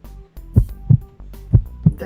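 Background music built on a deep heartbeat-like beat: pairs of low thumps, about one pair a second, over a steady low hum.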